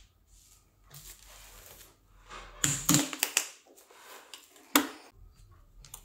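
Handling noises from a plastic laptop being worked on. There is a short rustle, then a quick cluster of sharp clicks and knocks about two and a half to three seconds in, and one more sharp knock near five seconds.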